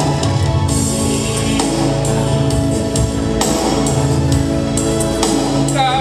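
Backing music with a steady beat and percussion; a man's singing voice through a microphone comes in near the end.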